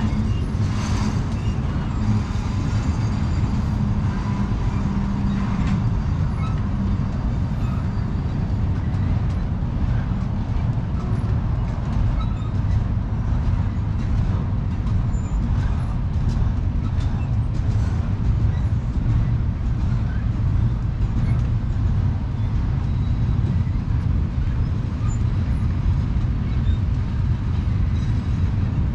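BNSF intermodal freight train's double-stack container cars rolling past, a steady low rumble of steel wheels on rail. A faint thin squeal sounds in the first few seconds.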